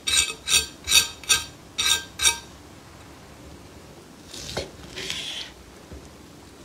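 Knife sawing back and forth through the seared crust of a beef steak on a wooden board: six quick, loud rasping strokes in the first two and a half seconds, then two softer scraping strokes between about four and five and a half seconds in.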